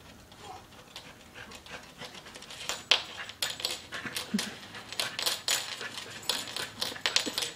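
A dog panting in quick, noisy breaths while humping a plush stuffed toy, with scuffing and claw clicks against the hardwood floor; it picks up about three seconds in, at roughly three or four strokes a second.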